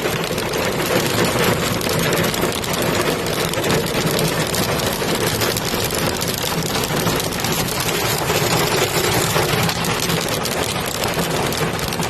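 Hailstorm: a dense, steady patter of hail and rain pelting hard surfaces, with a low steady hum underneath.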